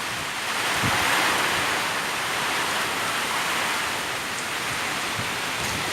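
Heavy rain pouring down in a windstorm, a steady rushing hiss.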